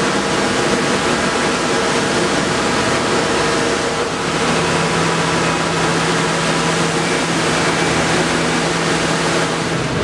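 Wide-belt sander running with a walnut plank feeding through it on a 100-grit pass: a steady loud rushing noise over a low, even hum.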